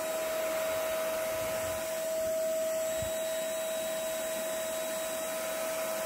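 Handheld UV-lamp vacuum cleaner running steadily, a constant motor whine over the rush of air.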